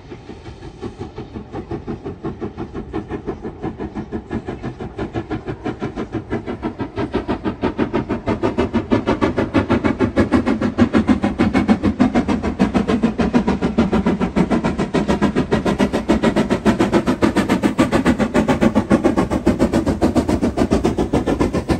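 Steam locomotive exhaust chuffing in a steady, rapid rhythm of even beats several times a second, growing louder over the first half and then holding steady.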